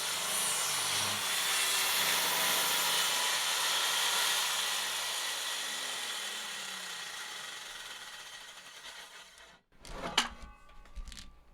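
Electric power tool running at full speed, then winding down after being switched off, its hiss fading and its pitch falling over several seconds. A few short knocks follow near the end.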